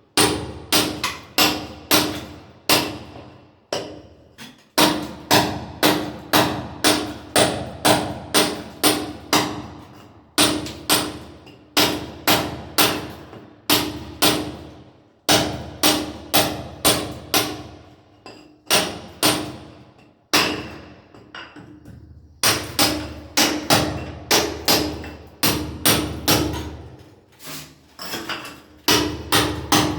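Hammer blows in a renovation, repeated sharp strikes at about two a second in runs of several blows, broken by short pauses.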